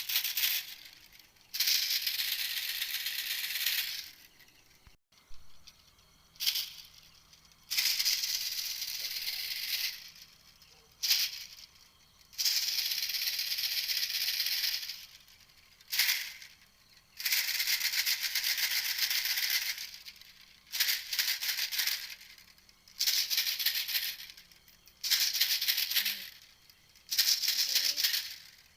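A recorded lure call played on repeat: each call is a short sharp rasp followed by a buzzing rattle lasting two to three seconds, repeating about every five seconds.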